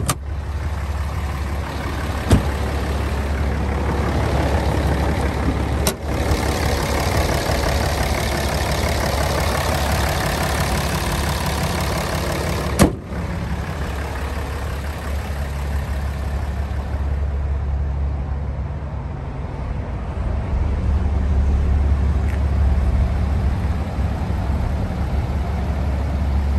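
A 6.7-litre Cummins inline-six turbo diesel idling steadily. It grows louder and deeper near the end as the tailpipe comes close, with a few short sharp knocks over it earlier on.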